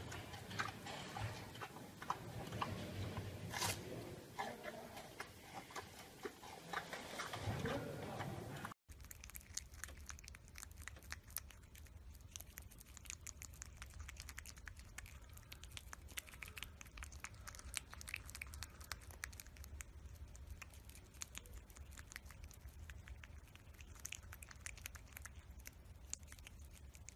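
A giant panda chewing and tearing bamboo shoots, with irregular crunching and snapping. About nine seconds in it cuts to a prairie dog nibbling food held in its paws: fast, faint clicking chews over a low hum.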